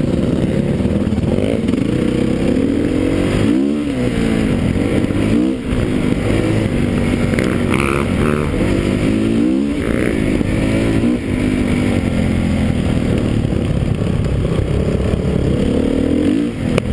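Enduro dirt bike engine under way on a rough trail, its note rising and falling with the throttle, with short drops in loudness about a third of the way in, about two-thirds in and near the end.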